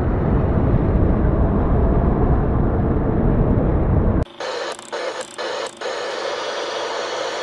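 Edited intro sound effects: a loud, dense noise heavy in the bass, which cuts off abruptly about four seconds in and gives way to a thinner, quieter static hiss broken by a few brief dropouts.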